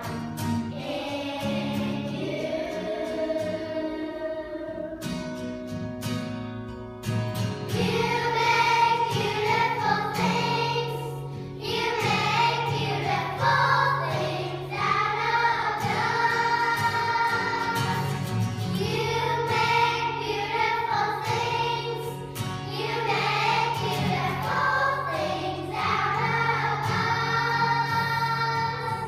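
Children's choir singing a hymn in unison to strummed acoustic guitar. The singing fills out and grows louder about seven seconds in.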